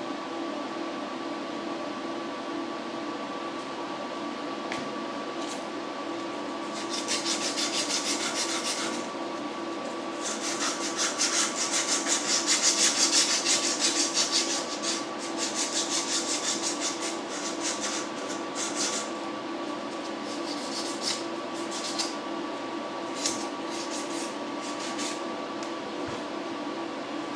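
A CNC machine's spindle runs with a steady hum while a 1/8-inch end mill cuts slots into a wooden cue billet held on a rotary fourth axis. The cutting comes as bursts of rasping noise from about a quarter of the way in, loudest near the middle, then thins to a few short ticks. This is a single slotting pass with no roughing cut.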